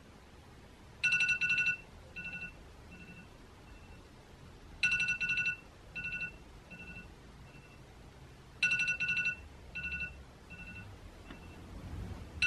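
Smartphone alarm tone going off three times, about every four seconds: a quick run of bright two-note chimes that fades away in softer echoing repeats.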